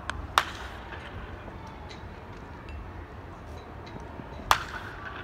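A baseball bat striking pitched balls in batting practice: two sharp cracks about four seconds apart, one just after the start and one near the end.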